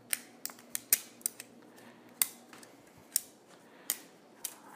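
About ten sharp plastic clicks and snaps, spread irregularly, as a stack of 3D-printed face-shield headbands is prised apart by hand, the thin layers joining the stacked bands popping loose.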